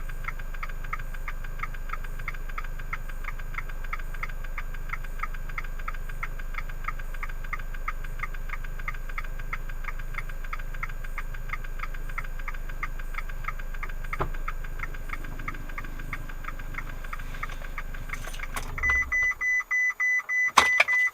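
Fiat 500 Abarth's 1.4 turbo four-cylinder idling with a fast, even ticking of about four ticks a second, a sound not tied to revs, speed or gear, which the owner suspects comes from the ECU being in an adaptation phase. The engine is shut off about 19 seconds in, followed by a few clicks and a high warning chime beeping several times.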